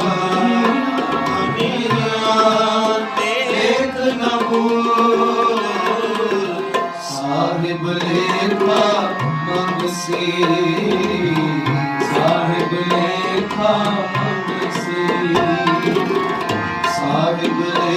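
Tabla accompanying a sung devotional melody.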